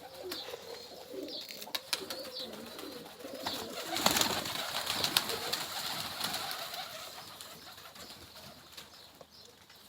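Domestic pigeons cooing softly, with a rustling burst about four seconds in that fades away over the next few seconds.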